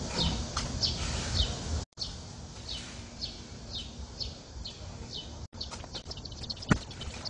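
A bird calling over and over: short, high chirps that fall in pitch, about two a second. A single sharp knock sounds near the end.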